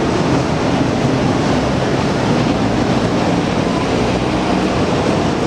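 Dense road traffic: a steady wash of engine and tyre noise from many cars, vans and motorbikes on a busy multi-lane road.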